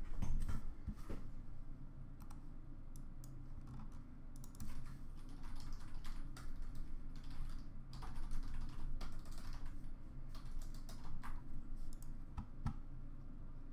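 Typing on a computer keyboard: irregular key clicks in quick runs, busiest in the middle stretch.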